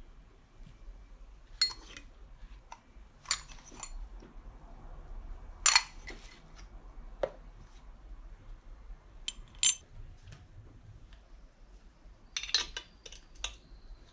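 Metal hand tools and engine parts clinking and knocking as they are handled and set down while a Piaggio moped's two-stroke engine is taken apart. Separate sharp clinks come every second or two, and the sharpest is about ten seconds in.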